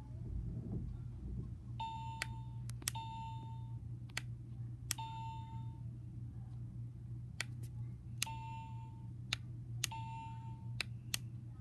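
Buttons on a kawaii dinosaur alarm clock clicking as they are pressed, five of the presses answered by a short electronic beep of the same pitch: the clock's key-press tones while setting the ringtone.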